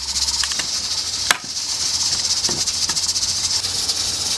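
A dense, high-pitched chorus of insects chirring, with one sharp click a little over a second in and a faint low hum underneath.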